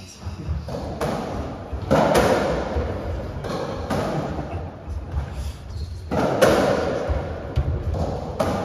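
Racketball rally on a squash court: the hollow rubber ball is struck by strung rackets and thuds off the walls, a sharp hit every second or two, each ringing in the enclosed court.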